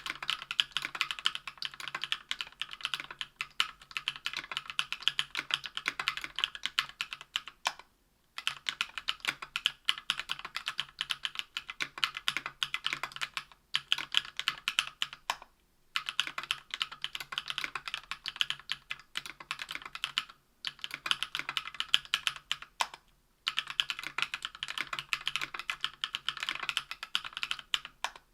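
Continuous typing on a Tofu 60% aluminium mechanical keyboard with lubed JWK CW 65g linear switches, an aluminium plate and GMK keycaps. The keystrokes come in quick runs, broken by about five brief pauses.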